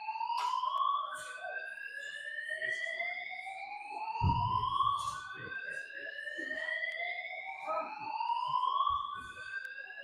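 Building fire alarm sounding a repeated rising whoop tone, each sweep climbing in pitch for about three seconds, then dropping back and starting again.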